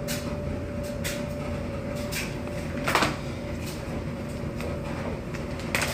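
Laundry machine running with a steady hum and low rumble, with irregular clicks and knocks from inside it and two louder clunks, one about three seconds in and one near the end.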